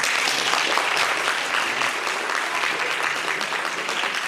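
An audience applauding: steady clapping from many hands in a hall.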